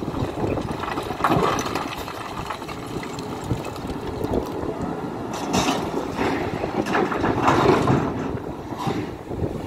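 Hidromek 310LC excavator's diesel engine running under working load, its loudness swelling and easing as it digs and swings.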